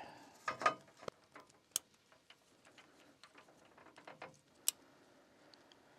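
Faint handling of solar-panel cables with scattered small clicks as MC4 connectors are pushed together on a microinverter's input leads. The two sharpest clicks come a little under two seconds in and near five seconds.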